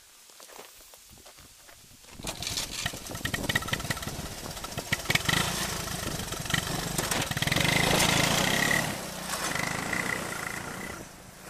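1982 Honda ATC185S three-wheeler's single-cylinder four-stroke engine under throttle as it rides up the gravel drive and past close by. It comes in suddenly about two seconds in, is loudest around eight seconds, then falls away near the end, with crackles of gravel under the tyres throughout.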